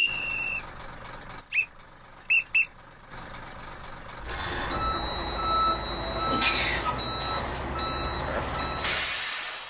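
A referee-style whistle blown in one held blast and then three short toots. Then a van's engine runs while its reversing alarm beeps steadily about every half second, with two bursts of hiss.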